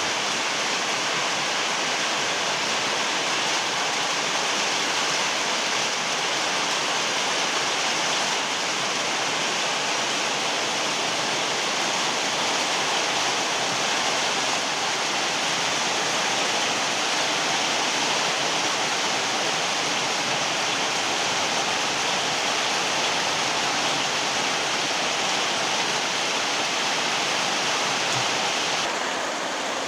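Very heavy rain pouring down in a steady, dense hiss, with no separate drops or thunder standing out. It drops slightly in level near the end.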